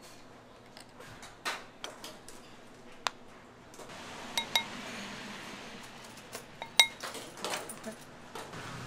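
Metal spoons clinking against ceramic bowls as a food-stall vendor handles the bowls and spoons in sauce. The clinks are sharp and irregular, a couple ring briefly, and the loudest comes about seven seconds in. A faint steady hiss runs underneath from about four seconds in.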